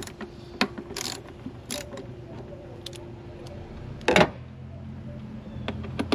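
Socket ratchet with a 10 mm socket clicking in short runs as bolts are loosened, with one louder metallic knock about four seconds in.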